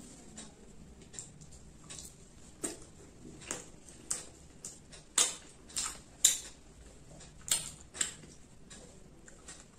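Close-up hand-eating sounds: fingers tearing roti and working through egg curry on a plate, making a string of sharp, sticky clicks and crackles, with the loudest ones bunched in the middle.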